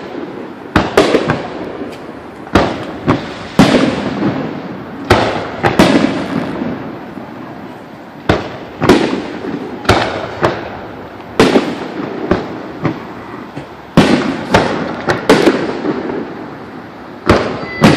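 Fireworks display: aerial shells bursting in quick succession, sharp booms roughly one a second, each followed by an echoing rumble. There is a short lull about seven seconds in.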